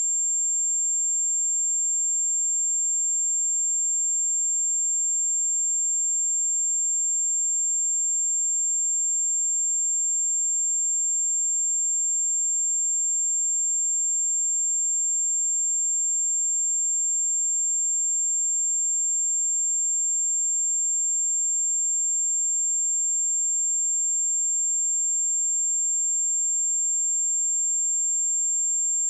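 A pure 7373 Hz sine-wave test tone, a single steady high-pitched whistle held at an even level without a break.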